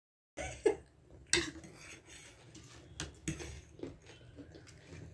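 Cutlery clinking against dishes: two sharper clinks about half a second and a second and a half in, then lighter clicks and knocks of utensils and bowls handled while eating. The sound starts abruptly after a moment of dead silence.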